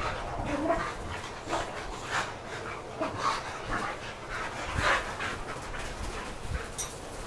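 Two Boxer dogs play-fighting, making short, irregular dog noises and breaths, the loudest about five seconds in.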